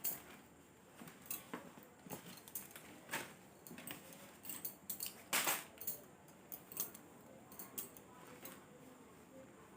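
A plastic-wrapped package being handled and opened by hand: scattered short rustles and clicks, the loudest about five and a half seconds in.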